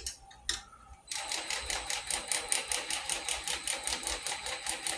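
3/8-inch-drive cordless ratchet running on a nut, a fast even clicking at about eight clicks a second over a faint motor whine, starting about a second in after a couple of light knocks.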